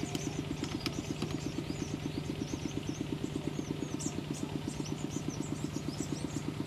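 A small engine idling steadily, a fast even beat of about eight or nine pulses a second, with short high chirps over it.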